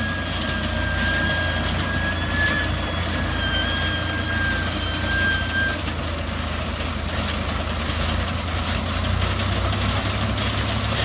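Fiat 640 tractor's diesel engine running steadily as it powers a front-mounted reaper binder cutting wheat. A thin high whine sounds over it and stops about six seconds in.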